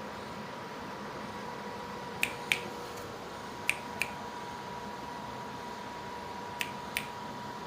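Three pairs of sharp clicks, each pair about a third of a second apart, over a steady hiss and a faint steady tone.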